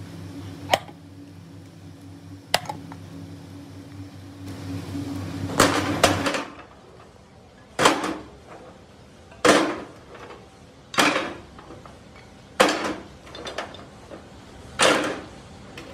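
An electric motor hums steadily, with two sharp sledgehammer strikes on scrap cast iron, until the hum stops suddenly about six seconds in. After that, heavy cast-iron castings clank onto metal one at a time, about six loud ringing clanks roughly a second and a half apart.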